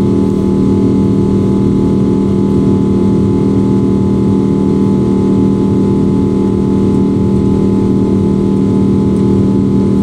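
Cabin noise inside a Boeing 777-200 in flight after takeoff: the twin jet engines and airflow make a loud, steady drone with a strong low hum and several fainter steady tones above it.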